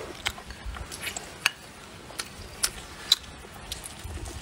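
A person eating rice and meat with chopsticks from a bowl: chewing and mouth sounds with a handful of sharp clicks, the loudest about three seconds in.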